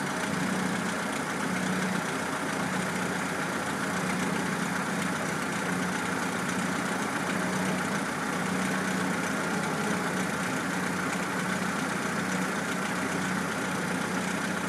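Car engine idling steadily, an even hum.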